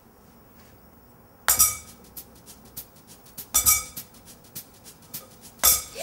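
Raw egg tapped against the rim of a glass bowl to crack it: three sharp clinks about two seconds apart, each with a short glassy ring, and faint ticks of the shell in between.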